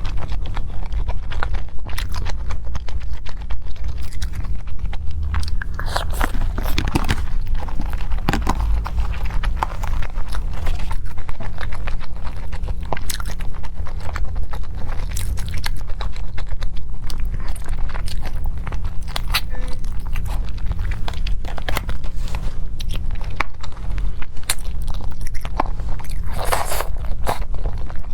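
A person biting and chewing food close to the microphone, with many small sharp clicks and crunches.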